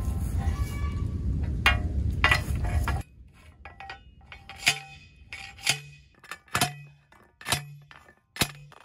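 Hand post driver pounding a steel studded T-post into the ground. In the second half come five metallic clanks about a second apart, each with a short ring.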